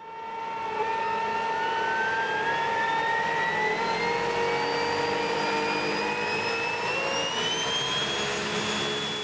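3D-printed regenerative (side-channel) compressor driven by a small electric motor, spinning up: a high whine rises steadily in pitch over several seconds above a steady hum and rushing air.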